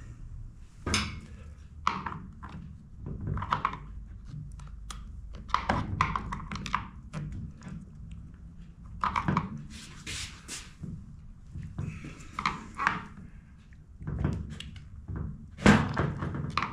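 Hand tools and chainsaw parts clicking and knocking against each other and a sheet-metal workbench during hands-on reassembly of the carburetor area, in scattered irregular strikes, a few louder ones, over a low steady hum.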